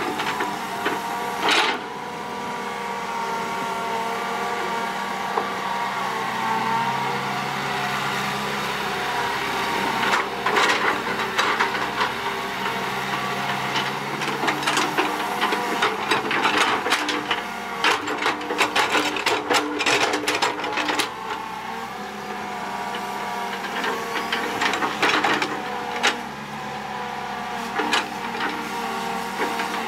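Hitachi EX120 hydraulic excavator's diesel engine running steadily as the machine digs and dumps soil. Clusters of sharp knocks and clanks from the bucket and boom come about ten seconds in, again from about fifteen to twenty-one seconds, and once more near twenty-five seconds.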